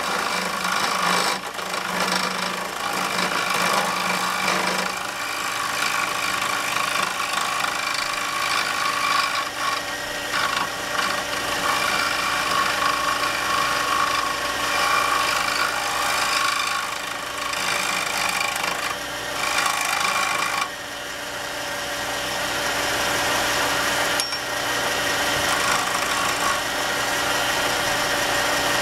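Wood lathe spinning wooden pen blanks on a mandrel while a skew chisel shaves them to final diameter: a steady scraping, rasping cut over the hum of the lathe. About three quarters of the way through the cutting stops suddenly and the lathe runs on alone.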